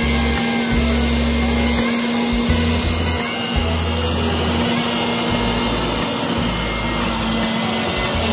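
Electric centrifugal juicer running with a steady motor hum, a deeper rumble coming and going as green apples, kale and celery are fed through it.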